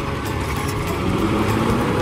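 Peterbilt side-loader recycling truck's diesel engine pulling away, its pitch rising slowly as the truck gathers speed.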